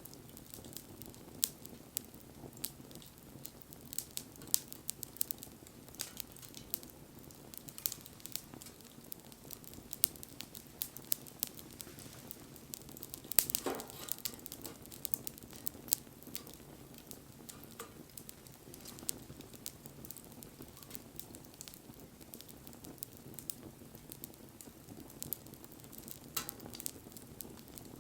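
Wood fire burning, crackling with many irregular sharp pops over a steady low rush of flame, one pop louder than the rest about halfway through.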